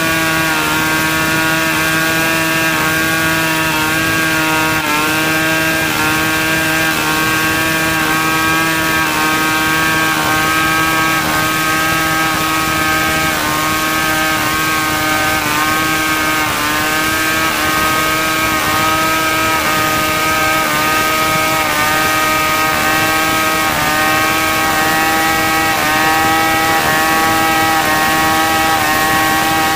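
Two-stroke chainsaw with a long bar running at high, steady revs while ripping lengthwise along a merbau log, its engine pitch dipping slightly now and then.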